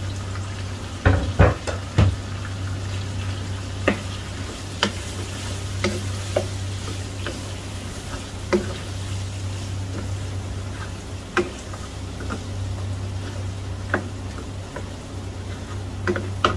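A wooden spatula stirs chopped tomatoes into mutton frying in ghee in a non-stick wok, knocking and scraping against the pan every second or two over a steady sizzle. A steady low hum runs underneath.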